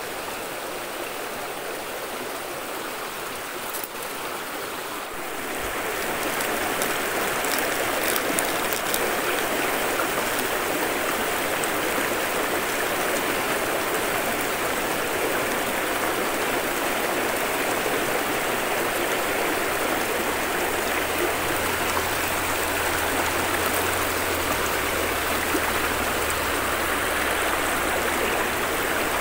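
River water flowing over rocks, a steady rush that grows louder about five seconds in.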